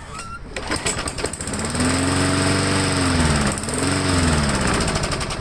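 Briggs & Stratton Classic single-cylinder lawnmower engine catches about a second and a half in and runs unevenly. Its speed sags in the middle, picks up again, then falls away near the end. This is the primed engine starting and then stalling, which the owner thinks could be a worn carburetor diaphragm and gasket.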